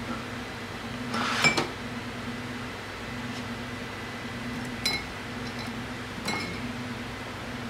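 Steel clutch plates from a ZF 8HP automatic transmission clinking against each other as they are picked up and laid down on a metal-topped workbench. There are three clear ringing clinks, one about a second and a half in and two more after the middle, over a steady low hum.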